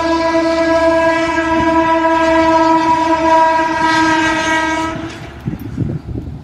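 Horn of an Indian Railways OHE (overhead equipment) maintenance van sounding one long, steady, loud blast that cuts off about five seconds in. A few low thumps follow.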